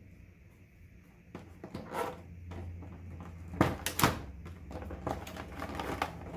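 Clear moulded plastic packaging tray crackling and clicking as a ring light is lifted out of its insert, with two sharp snaps about three and a half and four seconds in.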